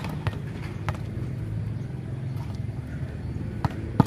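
Volleyball being struck by hands and bouncing on a concrete court: a couple of sharp slaps early on and two louder ones near the end, over a steady low rumble.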